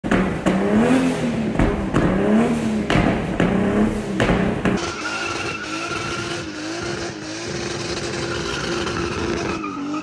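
Toyota 2JZ inline-six in a Mazda RX-8, revving up and down about once a second with sharp cracks in between. About five seconds in, the engine holds high revs steadily while the tyres squeal in a burnout slide.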